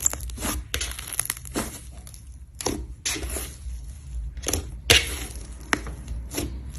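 Slime being squeezed and pressed by hand, making an irregular run of crackling clicks and crunches, with one sharper snap about five seconds in.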